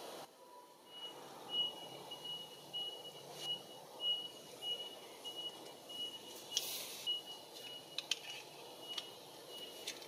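A high-pitched beeping, about two beeps a second, starts about a second in and keeps an even rhythm. A few sharp clicks and a brief rustle come in the second half.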